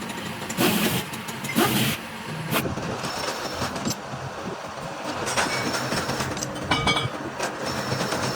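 Metalworking machinery running in a workshop, with a steady mechanical rattle and scattered metallic clicks. Two loud hissing bursts come in the first two seconds.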